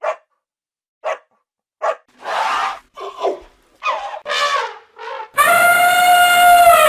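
A few short dog barks, then a series of elephant calls. The last of them, about five and a half seconds in, is a long trumpet that drops in pitch as it ends.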